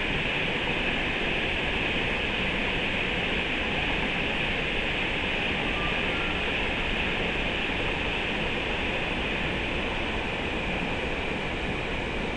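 Steady, even rush of flowing river water, an unbroken hiss with no changes.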